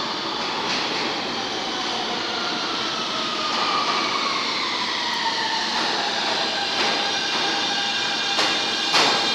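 An R160B Siemens subway train approaching through the tunnel, its rumble slowly building. Several whining tones from the Siemens traction motors slide down in pitch as it slows. Near the end there are two sharp clacks of wheels over rail joints, and a high steady squeal begins.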